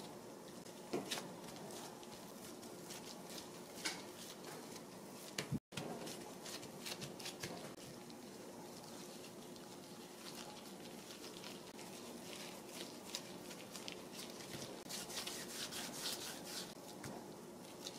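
Light rubbing with scattered small taps and clicks of food being handled in the kitchen, over a faint steady hum. The sound cuts out for a moment about six seconds in.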